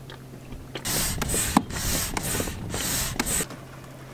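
Hissing air in about five short, loud bursts over some two and a half seconds, with a sharp knock partway through.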